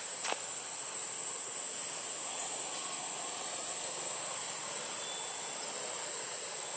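Steady high-pitched drone of insects in tropical forest, with one short click near the start.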